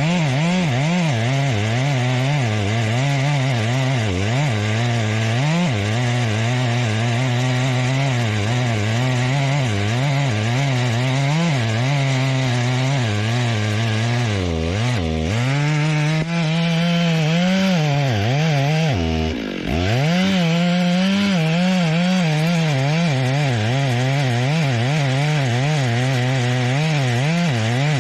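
Two-stroke chainsaw cutting through a large tree trunk, its engine pitch wavering constantly under load. The engine speed dips sharply about halfway through and again about two-thirds of the way through, then picks back up.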